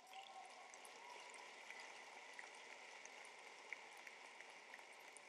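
Faint audience applause, an even spread of many small claps that comes up at the start and holds steady.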